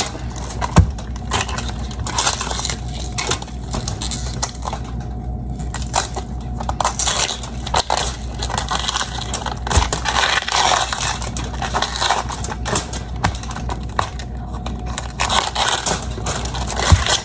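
Crisp crunching and crackling of cabbage leaves being snapped and peeled off the head, with irregular cracks throughout.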